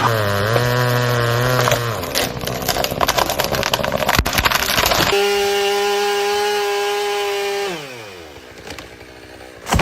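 Two-stroke chainsaw running: its engine note is steady, then turns rough while it cuts wood, then holds a high, steady pitch before the throttle is released and the revs fall away about eight seconds in.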